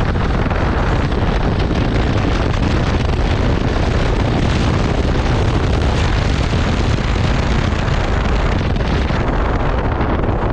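Yamaha R15 V3's 155 cc single-cylinder engine running as the motorcycle rides at speed, largely buried under steady wind noise on the microphone.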